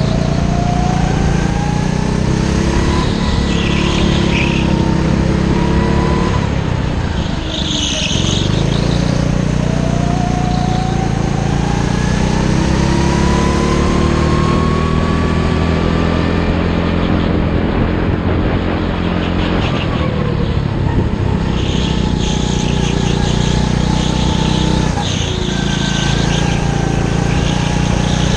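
Go-kart engine heard from the driver's seat, its pitch climbing as it accelerates along the straights and dropping back as it slows for corners, several times over.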